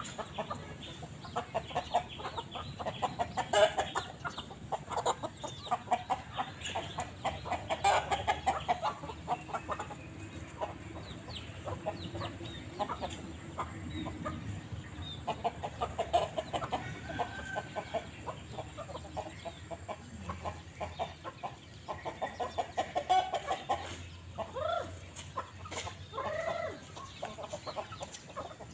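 A flock of young chickens clucking as they feed, many short calls overlapping without a break, with a few higher, sliding calls near the end.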